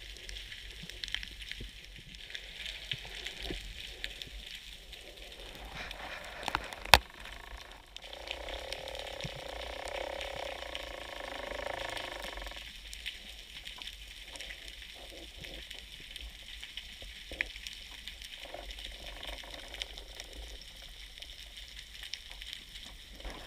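Faint underwater ambience: a steady crackling hiss made of many tiny ticks, heard through the camera underwater. There is one sharp click about seven seconds in, and between about eight and twelve seconds a low hum with a few steady tones joins it.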